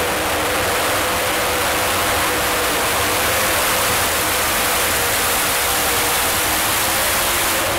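Supercharged small-block V8 of a modified mini pulling tractor running flat out under load as it drags a weight-transfer sled, a loud, steady, unbroken engine noise.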